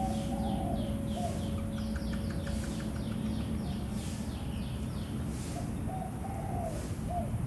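Small birds chirping in rapid series of short falling notes, about four a second, with a few lower warbling calls. Under them the hum of a temple bell fades away over the first few seconds.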